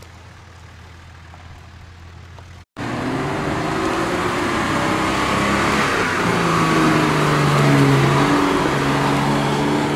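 A low steady hum, then, after a sudden cut about three seconds in, an off-road vehicle's engine working hard on a trail, its pitch and loudness climbing to a peak about eight seconds in and then easing off a little.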